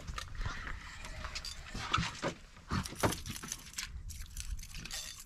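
Handling noise from a camera being moved and set in place on a boat: irregular rustles and knocks, with louder thumps about two and three seconds in.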